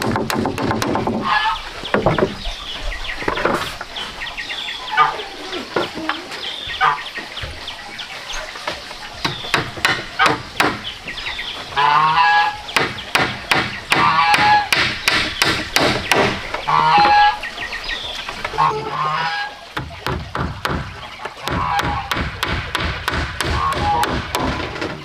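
Hammer driving nails into wooden planks in runs of quick strikes, with poultry calling loudly between and over the blows.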